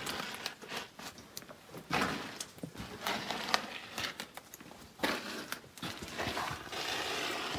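Footsteps scuffing and crunching over the rocky floor of a lava tube cave, with clothing and gear rustling, in irregular bursts with a few sharp clicks.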